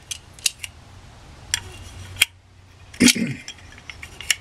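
Sharp metallic clicks and clinks at irregular intervals as a reassembled Rochester Monojet one-barrel carburetor is handled and its linkage worked, the loudest knock about three seconds in.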